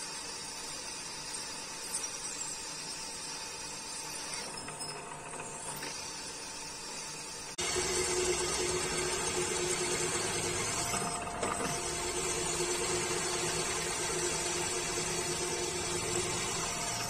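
PM-200 milling machine's spindle running steadily while a twist drill bores a hole in a steel bar, a steady machine sound with a few steady tones. It turns abruptly louder and lower about seven and a half seconds in.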